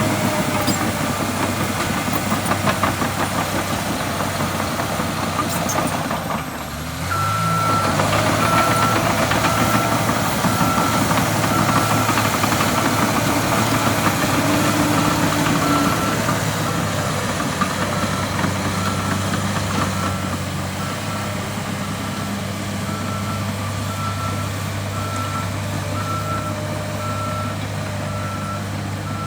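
John Deere 850J crawler dozer's six-cylinder 6090HT diesel running. About seven seconds in, the engine briefly dips and then comes back stronger, and the backup alarm starts beeping about once a second: the machine is in reverse.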